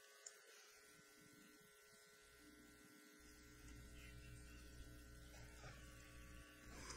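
Near silence: room tone with a faint steady electrical hum that fades in and out, and one faint click shortly after the start.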